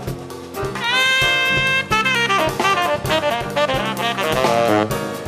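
Live jazz: a tenor saxophone plays a solo line over drum kit accompaniment, with one note scooped upward into a held tone about a second in.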